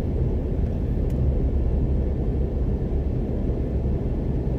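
Steady low rumble of road traffic, cars moving slowly along the road.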